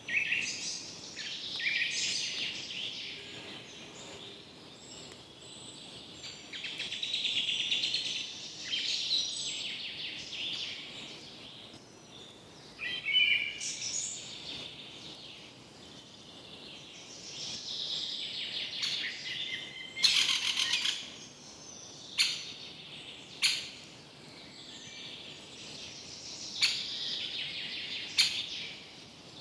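Birds chirping and calling in repeated bouts of high chirps, with a few short sharp clicks in the second half.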